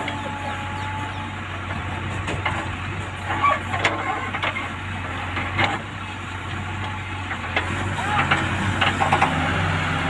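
JCB backhoe loader's diesel engine running steadily while its backhoe bucket digs into a sand pile, with occasional sharp clicks and knocks.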